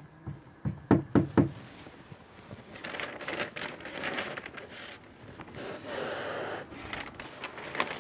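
A quick run of sharp knocks about a second in, then the rustle and crackle of a large sheet of painting paper being lifted and handled.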